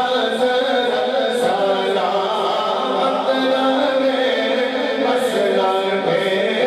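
A naat sung unaccompanied by a voice that holds long, melismatic notes, with no instruments or drums.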